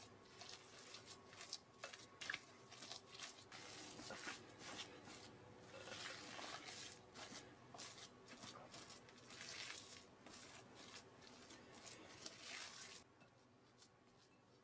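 Silicone spatula stirring and pressing a thick mashed-potato mixture in a glass bowl: quiet, irregular squishing and scraping strokes that stop near the end.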